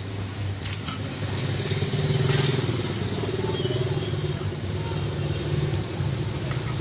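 Small 110cc motorcycle engine running steadily, growing a little louder about two seconds in and then holding.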